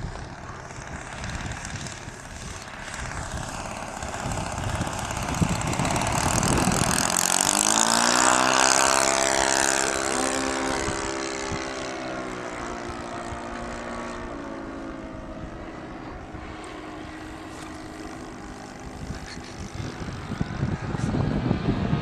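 Propeller-driven aircraft flying past with its engine running: it grows louder to a peak about eight or nine seconds in, its pitch dropping as it passes, then fades away.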